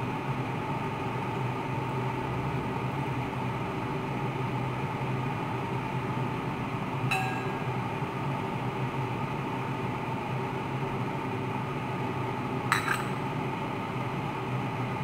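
Two sharp metallic clinks of a metal ladle against a stainless steel soup pot, each with a brief ring, one about halfway through and one near the end, over a steady kitchen hiss and low hum.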